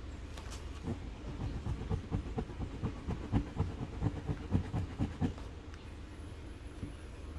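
Gloved fingertip rubbing hard back and forth over TPU-laminated 840D fabric in an abrasion test. A rapid, uneven run of rubbing strokes lasts from about a second in to about five seconds in, then fades to a soft hiss.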